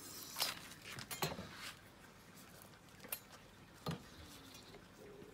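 Large chef's knife cutting the butcher's string off a smoked stuffed chicken on a wooden board: a handful of short, sharp snips and clicks, about five spread over the seconds.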